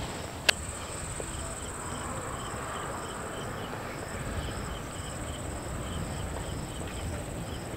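Insects trilling steadily in a high, continuous band, with a softer chirp repeating a few times a second beneath it. A single sharp click sounds about half a second in.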